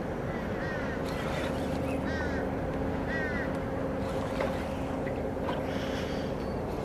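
Steady wind and water noise with a low, steady hum underneath. A bird calls several times in short, falling double chirps during the first few seconds.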